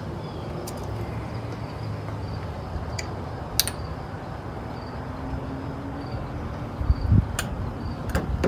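A few sharp metallic clicks and a couple of low knocks from hand tools being worked on an outboard motor's ignition breaker points, over a steady background hiss.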